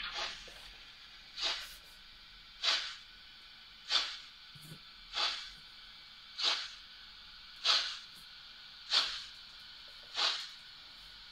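Digital sound of a Märklin 37015 S 2/6 steam locomotive model: short steam hisses repeating evenly, about one every one and a quarter seconds, some nine in all.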